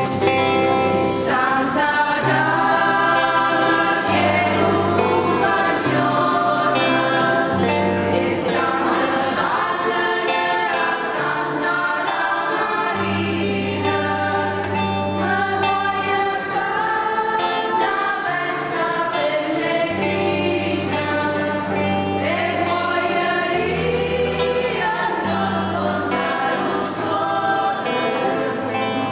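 Religious choral music: a choir singing over sustained instrumental chords and a slowly changing bass line.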